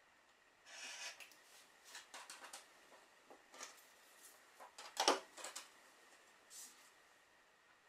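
Rotary cutter rolling through quilting fabric along an acrylic ruler, a short hiss about a second in, followed by light clicks and taps of the ruler and cutter on the cutting mat; the loudest is a sharp knock about five seconds in as the cutter is set down.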